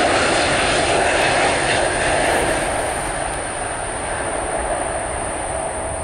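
Jet engine noise of a Boeing 777-200 twin-jet on short final for landing. It is a loud, steady rush that begins to fade about two and a half seconds in as the aircraft passes and flares over the runway.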